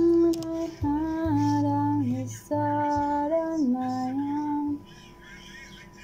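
A woman singing a slow pop ballad without a microphone, holding a few long notes that step down in pitch, and stopping about five seconds in.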